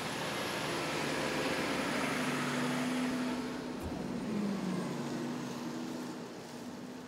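Tiller ladder fire truck driving by, its diesel engine running with a steady low drone. The engine note drops in pitch just after a short click about four seconds in, and the sound fades near the end.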